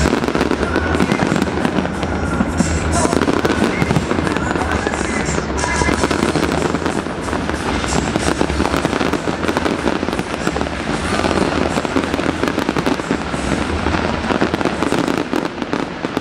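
Dense fireworks display: many shells bursting at once, giving a continuous run of bangs and crackling with no pause.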